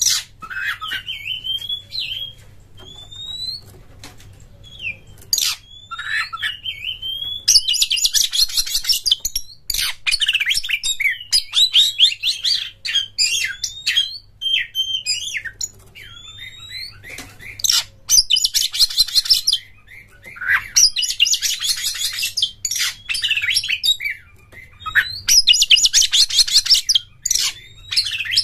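Oriental magpie-robin (kacer) singing a varied song of whistled and slurred notes. Its phrases break several times into harsh, rapid rattling trills.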